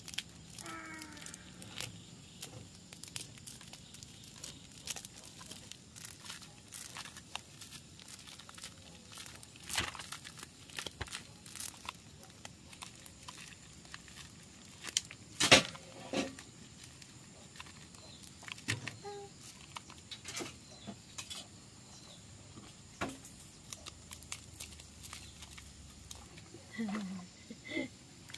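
Dried corn kernels being shelled by hand off the cob, the kernels clicking and pattering into a plastic basket in irregular little bursts, with one louder knock about halfway.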